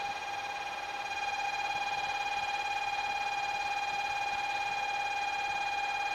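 Platform departure buzzer sounding one steady, slightly warbling high tone, the signal that the waiting diesel railcar is about to leave.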